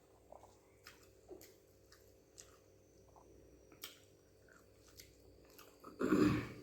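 A person chewing a mouthful of rice and egg pepper gravy close to the microphone, with soft wet lip smacks and small clicks. About six seconds in comes one louder, noisy mouth sound lasting about half a second.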